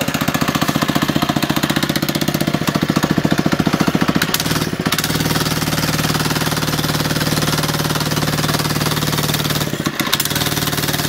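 Small single-cylinder four-stroke engine of a Doodle Bug mini bike running steadily under load as the bike is forced up a small rise from a standstill. Its centrifugal clutch is slipping, which burns the clutch out. The note changes briefly about four seconds in and dips for a moment near the end.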